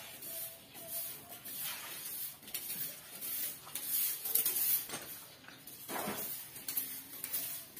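Stick broom of coconut midribs (walis tingting) sweeping dirt and debris toward a dustpan, in short, irregular strokes.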